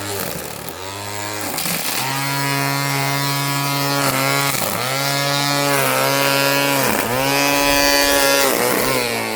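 String trimmer (weed eater) running along lawn edges, its motor whine dropping in pitch and climbing back several times as the trigger is eased off and squeezed again.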